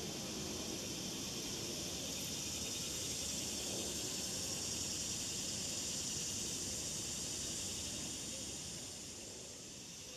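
Steady high-pitched insect chorus, easing off a little near the end, over a low rumble.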